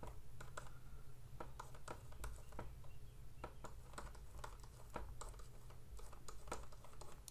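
Faint, irregular taps and clicks of a stylus on a tablet as numbers are handwritten, a few per second, over a low steady hum.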